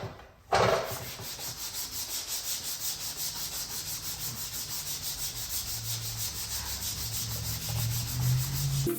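Sandpaper on a flat sanding block being worked by hand over guide-coated glaze putty, a steady rasping in quick, even back-and-forth strokes that starts about half a second in. This is guide-coat sanding, done to show up the low and high spots in the filler.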